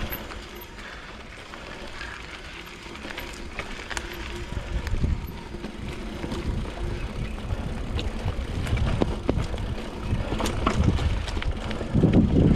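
Mountain bike riding over a dirt singletrack trail: tyres rolling on dirt with frequent small clicks and rattles from the bike. A low rumble grows louder toward the end as the ride picks up.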